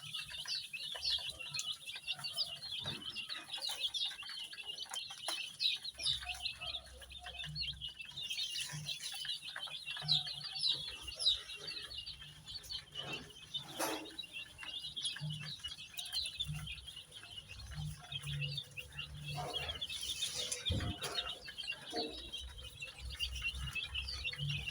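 A brood of baby chicks peeping, many high, short chirps overlapping continuously, with an occasional soft knock.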